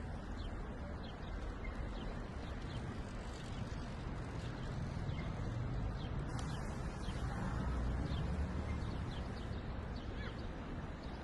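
Steady low rumble with faint bird chirps.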